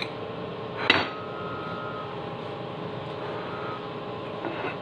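A single clink of cutlery against a ceramic dish about a second in, over a steady background hum. A few fainter clicks of utensils follow near the end.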